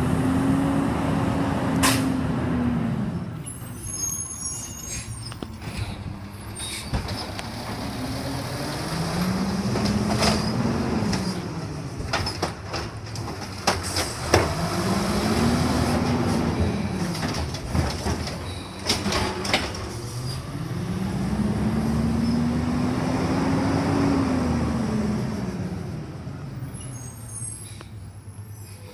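Automated side-loader garbage truck's engine revving up and falling back four times as its hydraulic arm lifts and empties curbside carts, with clanks and bangs of the carts and arm in between.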